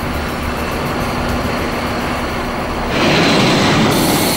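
A steady low industrial hum with a faint held tone, then about three seconds in an angle grinder grinding steel plate takes over: a louder, harsh hiss.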